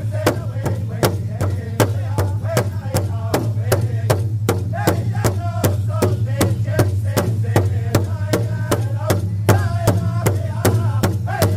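Powwow drum group singing together over a large shared powwow drum, struck in unison in a steady, even beat of about three strokes a second.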